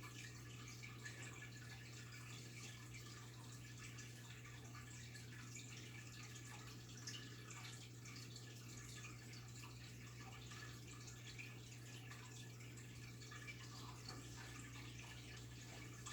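Faint water sounds from a goldfish tank: a dense patter of tiny drips, pops and bubbles over a steady low hum.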